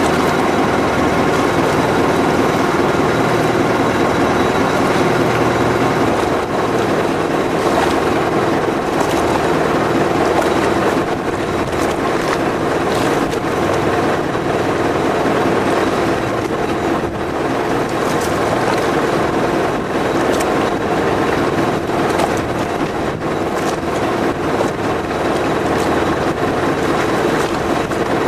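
Riverboat's engine running steadily under way: a continuous low drone with a steady hum that does not change.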